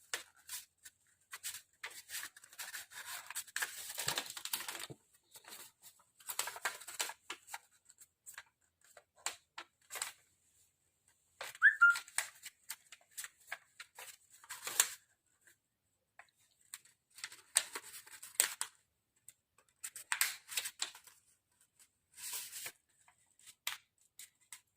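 A4 paper being folded by hand: scattered rustles and crinkles with short scrapes as creases are pressed flat, with quiet gaps between them.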